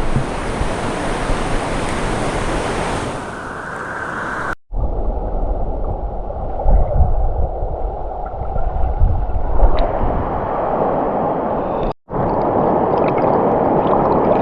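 Rushing river water: a steady loud noise for the first four and a half seconds. It cuts off abruptly and is followed by a different, lower steady rumbling noise, which changes again at another abrupt cut near the end.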